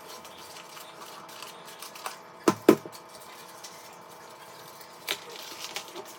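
Handling noise from cardboard and tape being worked by hand: scattered taps and knocks, the two loudest close together about two and a half seconds in, over a faint steady hum.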